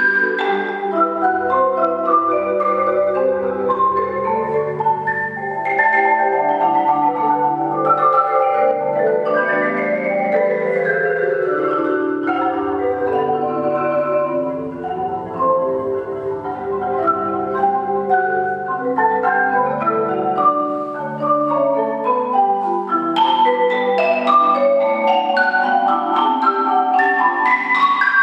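Marimba ensemble: six players on three marimbas playing a fast, dense passage of many overlapping mallet notes. Low bass notes run under the texture for most of the first twenty seconds, then drop out.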